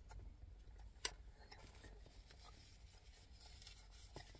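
Near silence: a faint low rumble of room tone, with one sharp click about a second in.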